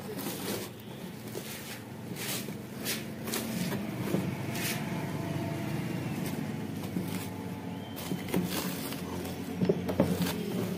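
Wooden rolling pin rolling and pressing over a slab of puffed rice bound with jaggery, the grains crunching and crackling in short sharp bits every second or so, loudest near the end. A steady low mechanical hum runs underneath.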